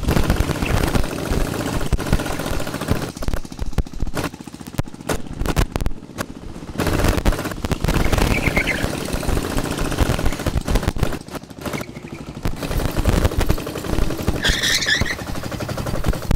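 Go-kart motor running as a fast train of sharp pops, getting louder and quieter as the kart speeds up and eases off, with two brief squeaks in the middle and near the end.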